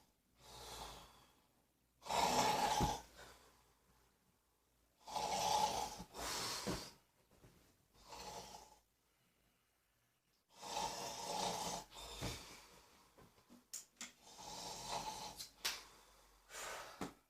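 A man snoring: loud snores a few seconds apart with quiet pauses between them, and a few sharp clicks among shorter snorts in the last several seconds.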